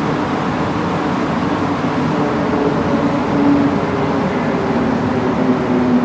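Inside a Montréal Métro Azur (MPM-10) rubber-tyred train running through the tunnel: a steady rush of running noise with faint low steady tones from the drive, as the train nears a station.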